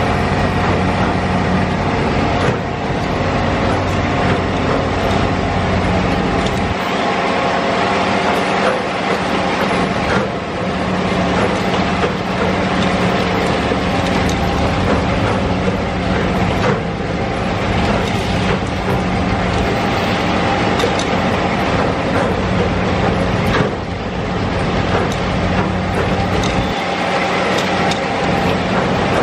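A rail track-laying machine at work: heavy engines running steadily under a dense mechanical clatter, with a sharp knock every several seconds.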